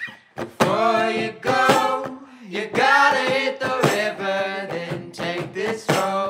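A voice singing alone without instruments, in pitched phrases that bend up and down, broken by short sharp clicks or hits.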